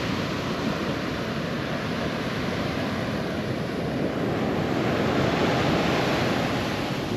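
Ocean surf breaking and washing up a sandy beach: a steady rush of water that swells slightly about halfway through.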